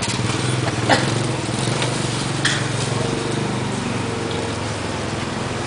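A small engine running steadily at an even pitch, with a couple of sharp clicks from bowls and utensils being handled about one and two and a half seconds in.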